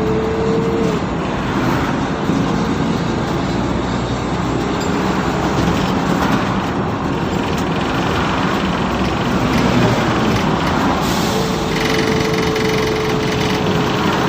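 Mercedes-Benz O530 Citaro city bus running, a steady engine and road rumble, with a steady whine that fades about a second in and comes back near the end.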